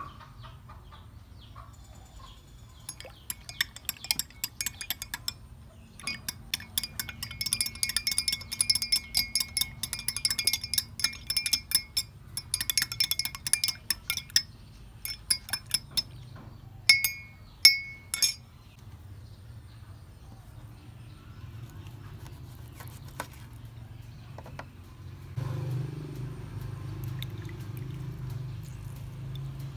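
Metal teaspoon stirring in a glass mug, clinking rapidly against the glass in long runs, then two louder ringing clinks. Softer handling noise near the end.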